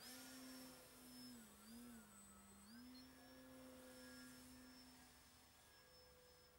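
Thunder Tiger E-Hawk 1500 electric glider's motor and propeller in flight, a faint steady whine. Its pitch dips twice about one and a half to two and a half seconds in, then comes back up and fades out near the end.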